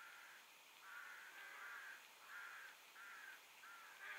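Faint crow cawing: a quick series of short, harsh calls, about seven of them, one after another.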